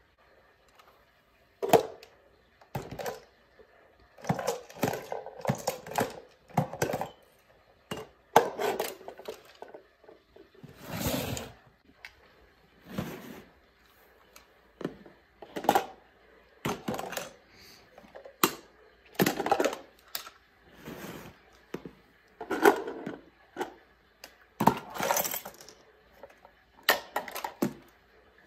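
Miniature plastic toy wheelie bins being handled, tipped and set down on a tile floor, with small trash such as bottle caps and bits of packaging clattering into a plastic wastebasket. The sound is a string of short clinks and rattles every second or two, with brief quiet between them.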